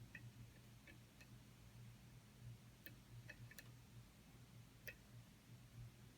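Faint, sparse clicks of a lock pick and tension wrench working the pin stack of a Dexter pin-tumbler challenge lock, about eight irregular ticks over a few seconds, over a steady low hum.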